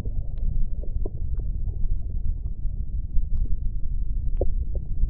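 Deep, muffled rumbling drone with a few faint clicks scattered through it.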